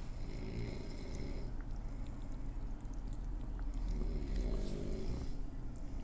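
Loud snoring: two long snores, one near the start and one about four seconds in, over a low rumble.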